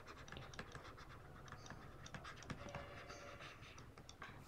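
Stylus faintly scratching and tapping on a tablet screen while a word is handwritten, a run of small quick ticks.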